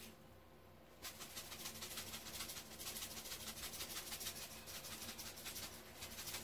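Peri-peri seasoning shaken from a shaker bottle over a raw whole chicken: a faint, fast, steady rattle of dry granules, starting about a second in.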